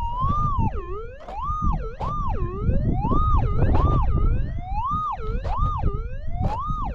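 Metal detector's target tone warbling up and down, its pitch rising and falling about once every three-quarters of a second as the coil is swept back and forth over the dug hole. This is the signal of a buried metal target still in the ground.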